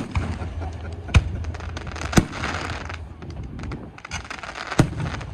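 Fireworks display: sharp shell bursts bang several times, the loudest about a second and two seconds in and again near the end, with crackling and fizzing between them.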